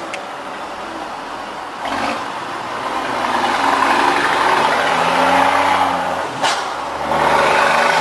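Truck diesel engine pulling away and accelerating, its note climbing in pitch. It breaks briefly with a click about two seconds in and again near the end as gears change, then climbs again.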